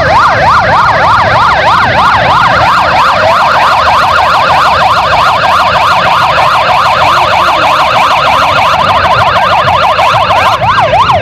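Several motorcycle sirens in rapid yelp mode, each pitch sweeping up and down several times a second and overlapping one another, over a low rumble.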